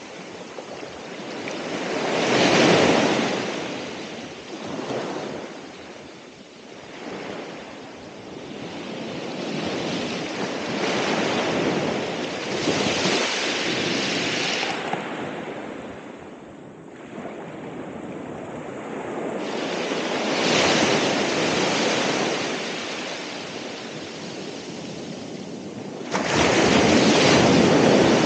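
Ocean surf: waves breaking and washing up the shore, the rush of water swelling and falling away every few seconds. Near the end the surf suddenly gets louder.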